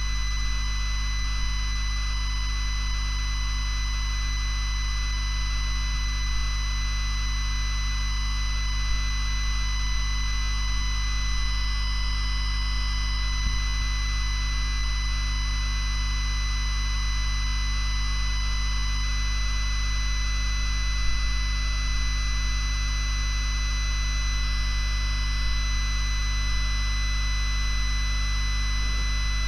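ZX Spectrum 48K loading a game from cassette tape: the steady harsh buzz of the tape data signal, with a low hum underneath.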